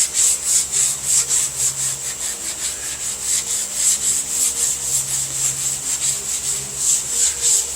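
Sandpaper on a hand-held sanding block rubbed back and forth over a car body panel in even strokes, about three a second.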